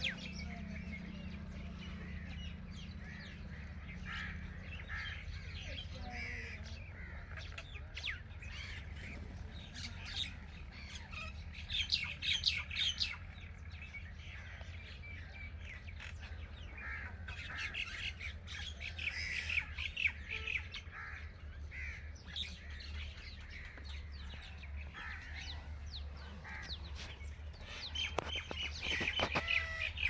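Birds chirping and calling in the surrounding trees, with scattered short high calls that come thickest about twelve seconds in and again near the end. A steady low hum runs underneath.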